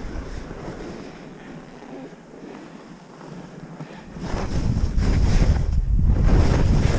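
Wind buffeting a skier's camera microphone during a fast descent. It eases off for a few seconds and comes back louder about four seconds in, mixed with the scraping hiss of skis turning on firm, wind-packed snow.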